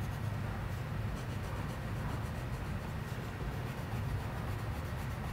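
Coloured pencil rubbing and scratching on paper as it colours in a small area: a soft, steady scratching over a low room hum.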